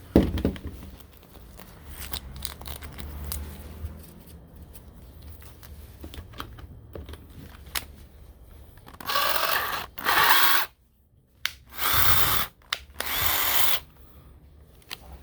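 A knock, then faint scraping and clicking, then a cordless drill run in four short bursts near the end. The drill is fitted with a small bit and is cleaning out damaged wood in a wooden screen door before wood filler goes on.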